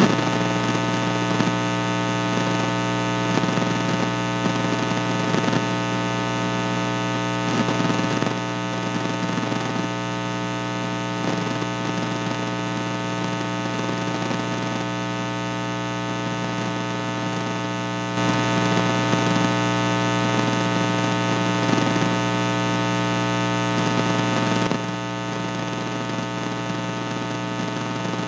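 Loud, steady electrical mains hum with a dense buzz of overtones and a faint crackle of static; it gets louder about two-thirds of the way through and drops back near the end.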